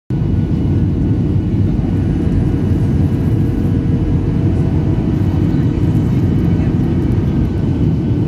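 Jet airliner cabin noise in flight, a Skymark Boeing 737-800: a steady, deep rushing of airflow and engines with a few faint steady tones above it.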